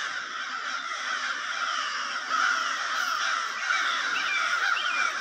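A flock of crows cawing continuously, many calls overlapping, as they mob a red-shouldered hawk.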